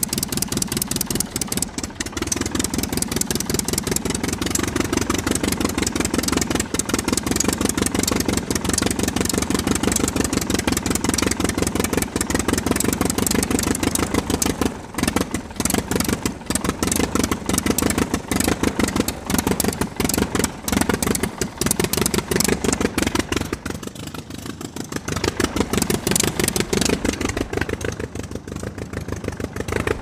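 Propeller aircraft's piston engine running with a rapid, even firing beat. Its pitch and level waver up and down, easing off briefly about halfway through and again near the end.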